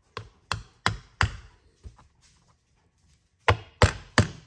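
Hammer striking a steel punch to drive pins out of a flintlock pistol's wooden stock: four sharp blows about three a second, a pause, then three more near the end.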